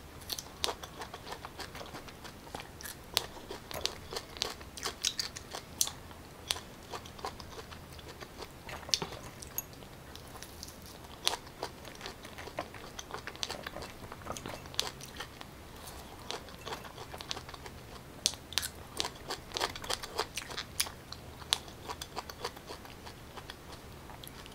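Close-up biting and chewing of fresh pineapple: irregular crunches, clicks and mouth smacks from bite after bite.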